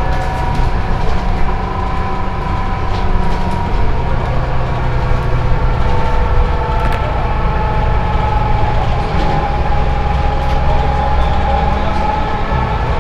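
Bus drivetrain heard from on board: a steady low rumble under a high whine that drifts slightly up and down in pitch, with a few light rattles.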